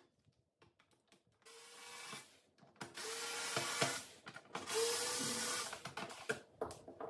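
Small cordless electric screwdriver running in three short bursts, each about a second long with a steady whine, as it backs out the screws holding a Roborock's side brush motor. Light clicks and knocks of plastic parts being handled come between and after the bursts.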